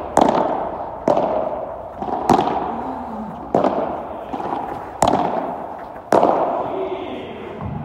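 Padel rally: six sharp pops of the ball struck by padel rackets and rebounding, about one a second, each ringing on in a long echo under the covered court's dome.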